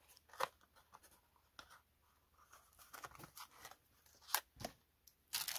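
Faint handling noises: light taps and rustles as a small cardboard box is set down, with a few sharper clicks, then a loud burst of paper crinkling near the end as a paper bag is picked up.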